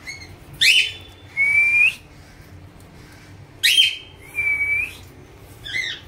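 Cockatiel whistling a repeated two-part phrase, twice: a sharp falling note, then a longer steady whistle that turns upward at its end. A shorter warbling call follows near the end.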